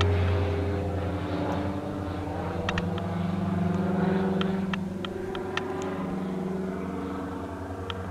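Diamond DA42 twin-engine light aircraft flying overhead, its propeller engines giving a steady drone that eases off slightly as it passes. A few short sharp ticks sound over it.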